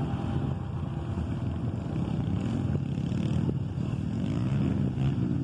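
Several small dirt-bike engines running at low speed, the pitch rising and falling as riders throttle on and off, most clearly in the second half.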